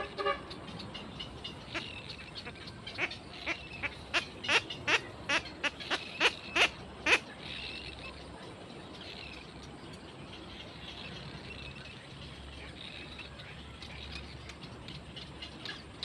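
Black-crowned night heron nestlings giving a run of short, sharp calls, about two or three a second and growing louder, that stop about seven seconds in. Fainter chatter follows.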